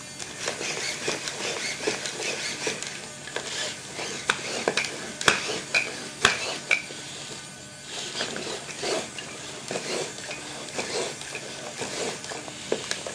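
A small Tachikoma walking robot moving its plastic legs: a stream of irregular light clicks and clatters from its moving parts and feet on the tabletop.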